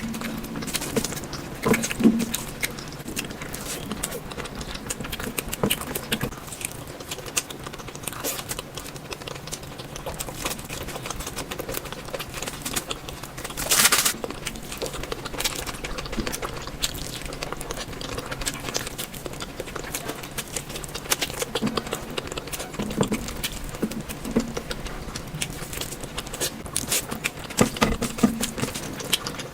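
Close-miked eating: rapid wet chewing and mouth smacks with small clicks, and a louder, noisier crunch or bite about halfway through.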